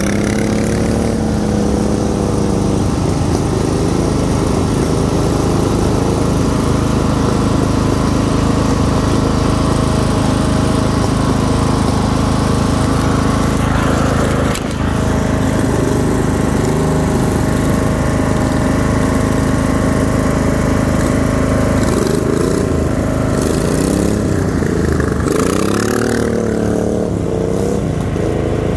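Craftsman LT1000 lawn tractor's 24 hp V-twin engine with dual exhaust running. Its pitch rises and falls as it revs near the start and again a few seconds before the end, and it holds steady in between.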